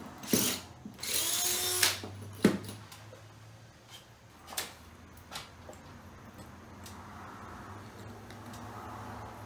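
Power drill run in two short bursts, its motor pitch rising and falling, in the first two seconds. A sharp click follows, then a few lighter clicks over a faint steady hum.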